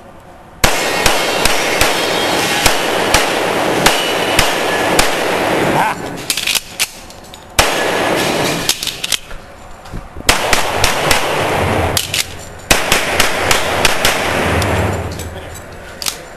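Handgun fired in rapid strings of several shots, a few shots a second, with short pauses between strings. Each shot rings on in the heavy echo of an enclosed indoor range.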